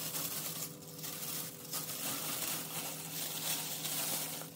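Plastic oven roasting bag crinkling and rustling in uneven surges as it is handled with a whole chicken inside.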